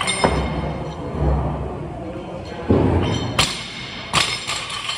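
Loaded barbell with rubber bumper plates worked through a snatch: a thud as the lift is pulled and caught, a heavier thud, then several sharp metallic clanks of bar and plates as it is brought back down to the floor.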